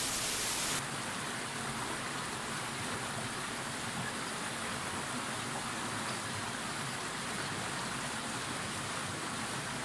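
Water rushing out of culvert pipes under a concrete dam and churning in the pool below: a steady, even rush. It opens with a brief burst of static-like hiss, under a second long.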